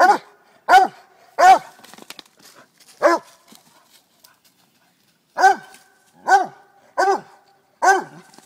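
Small hound dog barking at a raccoon caught in a trap: a run of four sharp barks, a pause of about two seconds, then four more at an even pace.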